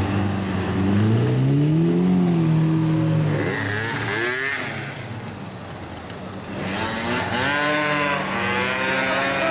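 Lamborghini Murciélago's V12 revving hard in repeated bursts as it pulls away, its pitch climbing and falling with each rev. The sound eases off about halfway through, then comes back with a higher, sharper rev near the end.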